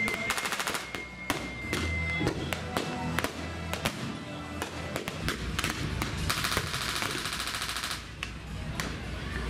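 Scattered blank rifle shots and rapid machine-gun fire over music: a short burst right at the start and a longer burst of about two seconds past the middle.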